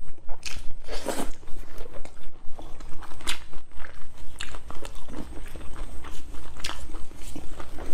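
Close-up eating sounds: chewing and biting into glazed pork belly, with wet mouth smacks and several crisp crunches, the loudest about a second in.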